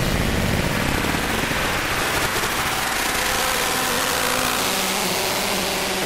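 Electronic noise music: a dense, steady wash of noise with short held tones sounding through it in the low middle.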